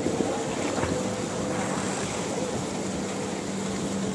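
Wind on the microphone and river water lapping, with a faint steady drone under it that comes in about a second in.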